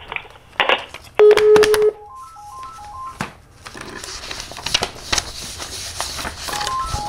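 Corded desk telephone just hung up: handset clatter, a steady tone lasting under a second, then repeated short three-note electronic beep patterns that come back near the end. From the middle on, paper rustles and crackles.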